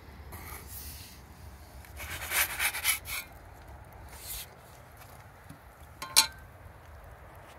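Short spells of scraping and rubbing, the loudest about two to three seconds in, then one sharp metallic clink about six seconds in, over a low steady rumble.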